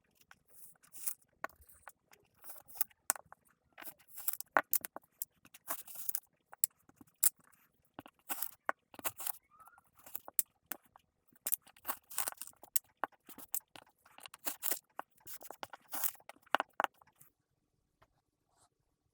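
Kinetic sand being cut and squished, a long run of irregular gritty crackles and soft crunching scrapes that stops about two seconds before the end.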